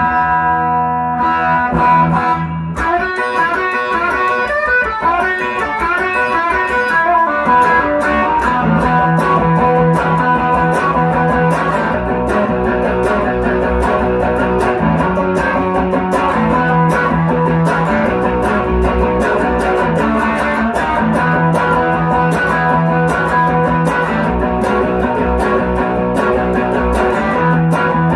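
Electric guitar, a 1957 Fender Esquire fitted with a 1950s Fender lap-steel pickup with flat pole pieces, played through a 1965 Fender Deluxe Reverb amp: a continuous run of quick single notes over low bass notes.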